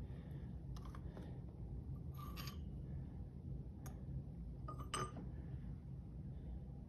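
A few light metallic clicks and clinks as steel clutch-pack parts are handled on a workbench, the sharpest about five seconds in, over a low steady hum.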